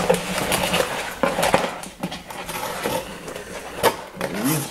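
Cardboard and paper rustling and scraping as items are handled and pulled out of a cardboard box, with irregular sharp crinkles and taps. A short rising voice sound comes near the end.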